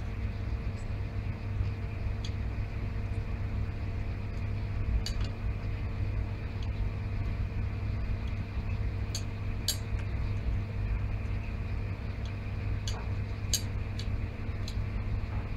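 Steady low hum of room equipment, with faint light clinks every few seconds as dry yeast is spooned into a glass beaker on an analytical balance.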